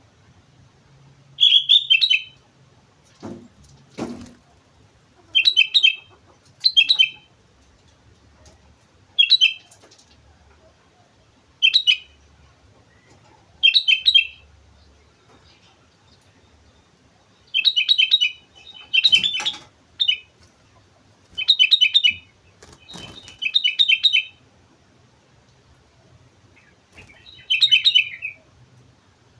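Sooty-headed bulbul (kutilang) singing: about a dozen short, loud song phrases repeated at irregular gaps, with a few dull knocks in between.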